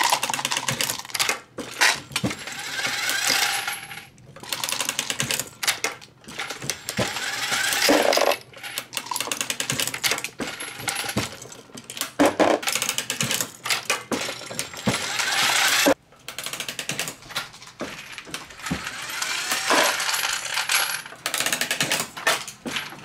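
Dillon 1100 progressive reloading press cycling as 9mm rounds are loaded, with brass cases and cartridges clinking and rattling against each other, with a few brief breaks.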